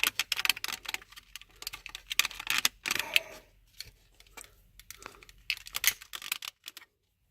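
Scattered plastic clicks and taps as a plastic trim tool pries at the top edge of a dashboard trim panel to free its clips. The clicks stop about six seconds in.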